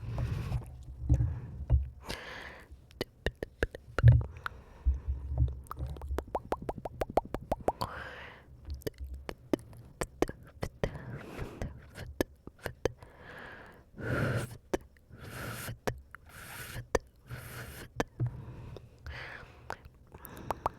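Close-miked ASMR mouth sounds: a stream of quick wet tongue clicks and lip smacks, with a low thump about four seconds in and a run of short breathy hisses about two-thirds of the way through.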